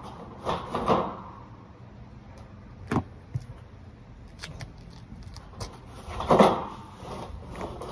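Corrugated steel shutter panels scraping and clanking as they are worked loose by hand. There is a scrape about a second in, a single sharp knock about three seconds in, and a louder scraping clatter a little after six seconds.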